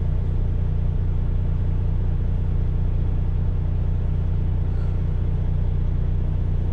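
A semi truck's diesel engine running with a steady low rumble.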